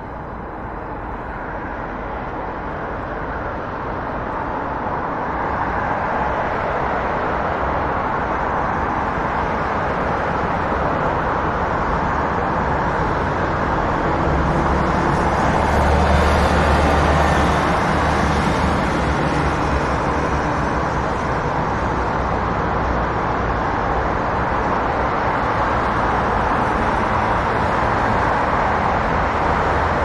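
City street traffic: a continuous rumble and hiss of vehicles that grows louder over the first several seconds. About halfway through, a vehicle passes close with a deep rumble, the loudest moment.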